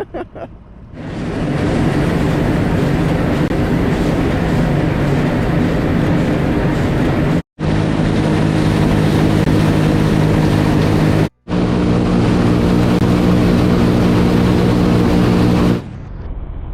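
Heavy farm machinery running steadily at close range, a diesel engine's hum with a noisy mechanical wash over it. It cuts out abruptly for a split second twice.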